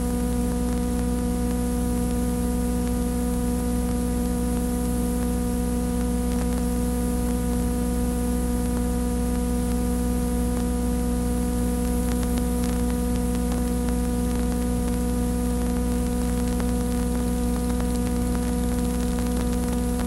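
Steady electrical mains hum with several fixed tones, over a constant hiss and nothing else: the empty soundtrack of a silent home-movie film transferred to video.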